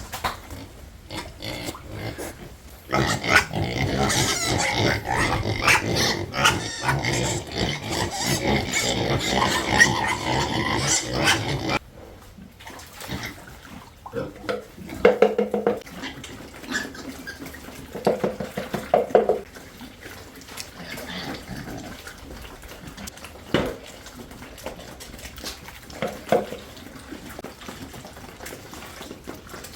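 Pigs at feeding time vocalizing: a loud, dense din of several pigs begins about three seconds in and cuts off suddenly at about twelve seconds. After that come quieter, scattered grunts and a few clicks.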